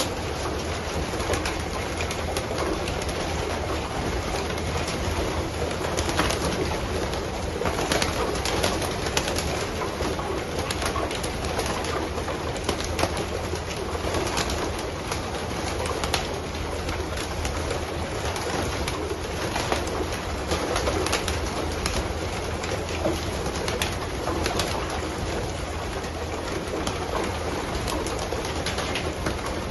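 A large flock of racing pigeons, many birds cooing and fluttering at once, with scattered sharp clicks all through.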